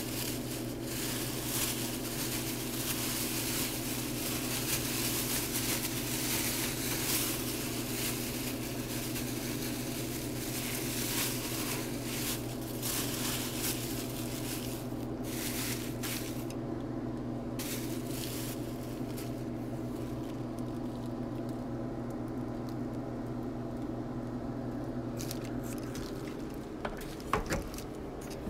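Kitchen cooking sounds: a steady low hum with irregular crackling and rustling over it that stops abruptly about halfway through, leaving the hum alone, and a couple of small clicks near the end.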